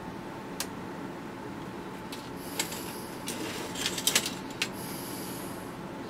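Light clicks and taps of a soldering iron and wires against a plastic radio case, several in a quick cluster about four seconds in, with brief faint sizzling as the iron tins the battery-clip wires.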